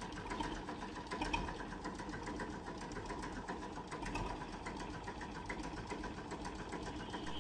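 An engine running steadily with a fast, even clatter.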